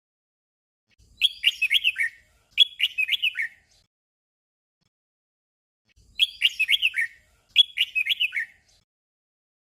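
Red-whiskered bulbul singing its short 'double' song: a quick warbled phrase given twice back to back, and the same pair again a few seconds later.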